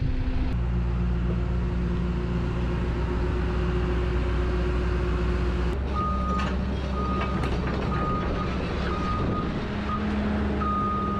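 Caterpillar 319D L excavator's diesel engine running steadily. About six seconds in, its note shifts and a warning alarm starts up: short beeps at one high pitch, repeated at uneven gaps of under a second, with a few clanks in between.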